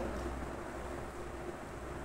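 Steady background noise: a low hum under an even hiss, with no distinct event.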